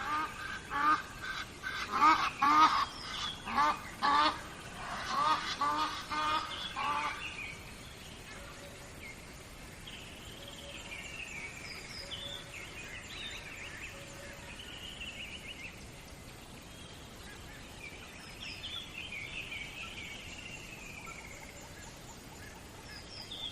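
A bird honks loudly and rapidly over and over for the first several seconds, then stops. After that, smaller birds chirp and sing intermittently over the steady low wash of flowing river water.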